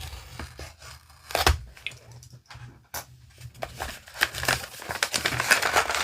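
Toy packaging being torn open and rustled by hand: crinkling and tearing with small sharp clicks, a louder crackle about one and a half seconds in, and busier rustling from about four seconds on.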